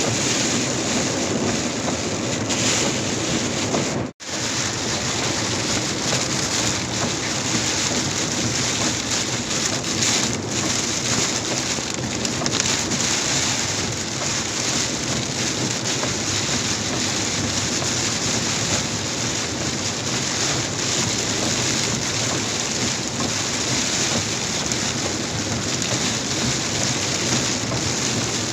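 Heavy rain drumming steadily on a moving car, mixed with tyre and road-water noise. The sound cuts out completely for a moment about four seconds in.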